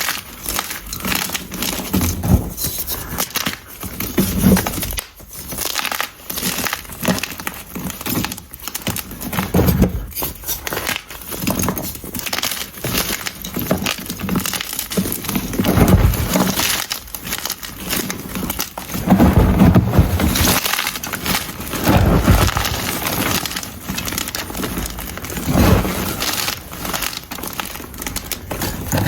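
Blocks of unpolished gym chalk being crushed: a dense run of crisp crackles, with heavier crunches every few seconds.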